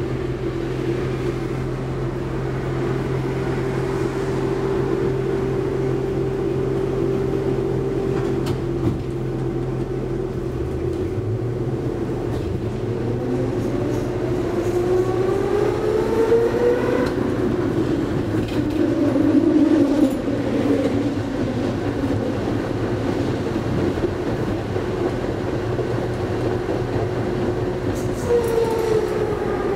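Konstal 13N tram heard from inside a passenger car while running: steady rolling noise under a motor whine that rises in pitch as the tram accelerates, once about halfway through and again near the end, with a few clicks and knocks from the running gear.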